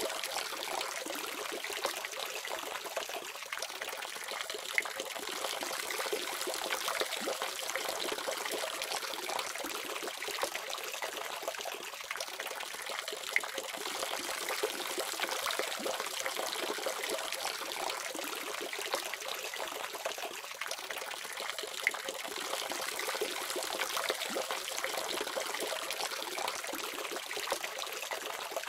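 Tap water running steadily from a faucet: a continuous splashing stream, with an occasional sharper splash.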